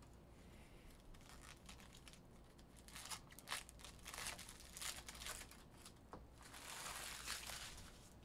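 Foil trading-card pack being torn open and crinkled in the hands: faint, irregular crackling and tearing, busiest about three seconds in and again around seven seconds.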